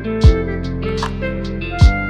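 Background music: held synth-like notes over a beat, with two deep falling bass hits and light percussion ticks.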